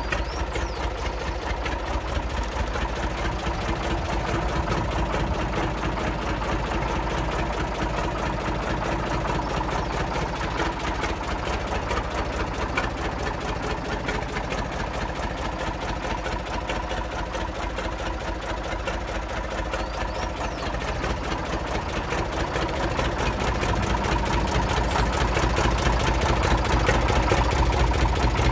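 Deutz A65 tractor's diesel engine idling steadily, a dense, even low rumble that grows somewhat louder over the last few seconds.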